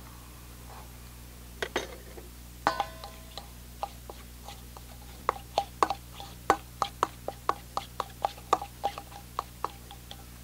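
Steel spoon clinking and scraping against a stainless steel bowl while mixing a thick masala paste with curd. There are a few scattered clicks and one ringing clink at first, then from about halfway through a steady run of about four clinks a second.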